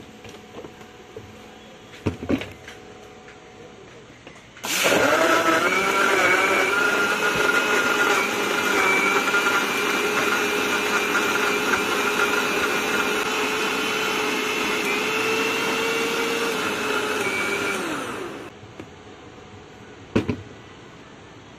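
Electric blender (mixer-grinder) running with its tall plastic jar full of lassi, a steady loud whine for about thirteen seconds before it is switched off and winds down. There are a couple of knocks a few seconds before it starts and one sharp knock near the end.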